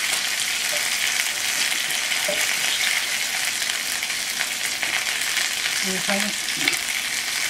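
Chicken skin and a chipotle-marinated chicken thigh frying in shallow oil in a grill pan: a steady sizzle, with a couple of faint clicks as metal tongs move the pieces.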